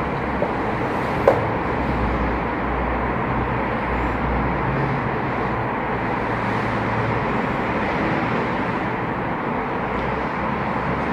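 Steady background noise, a low hum under an even hiss, with one sharp click about a second in.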